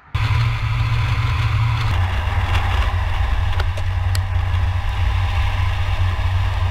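Steady loud driving sound of a BMW E39 530i Touring heard from underneath the car: a low rumble from the exhaust and drivetrain mixed with tyre and road noise. The low rumble changes slightly about two seconds in.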